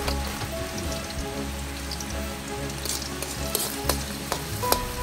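Chopped red onions sizzling as they fry in oil in an aluminium wok over a wood fire, stirred with metal tongs. The tongs click against the wok a couple of times near the end.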